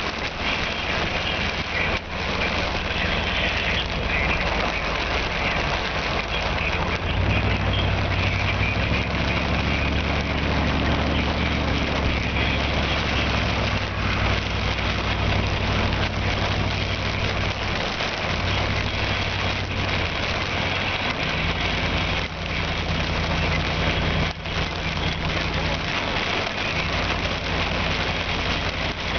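Strong thunderstorm wind, about 60 mph, rushing steadily around a vehicle. The engine's low drone comes in about a quarter of the way through and again later.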